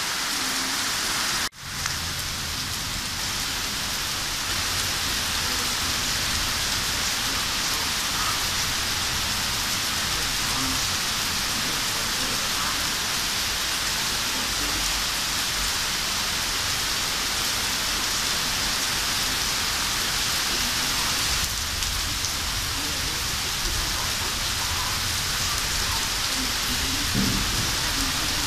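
Steady heavy rain falling straight down, with a low rumble of distant thunder underneath.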